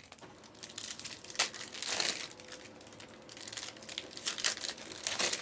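Plastic trading card packaging crinkling and crackling as it is handled, in irregular bursts with a few sharper crackles about a second and a half in, around two seconds, and near the end.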